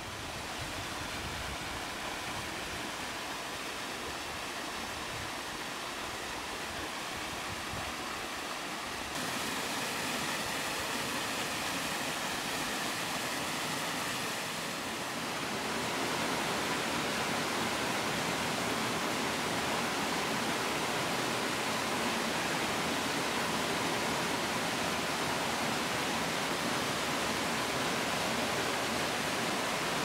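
Waterfalls running: a steady rush of falling water into a pool, which gets louder in two steps, about nine seconds in and again around sixteen seconds, as the view moves to different falls.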